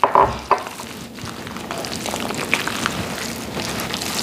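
Wet squishing of raw ground beef and milk being kneaded together by a gloved hand, a steady run of small squelches and crackles.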